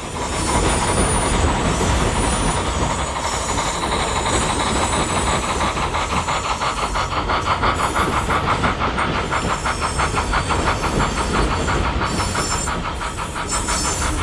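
Steam locomotive running under way: rapid, even chuffing over a steady rumble and hiss.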